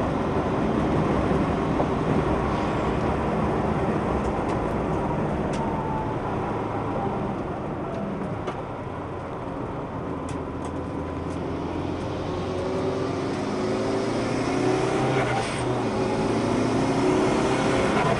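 Track car's engine running hard on the circuit, heard from inside the car over road and tyre noise. It eases off for a few seconds just before the middle, then climbs again with rising pitch as the car accelerates.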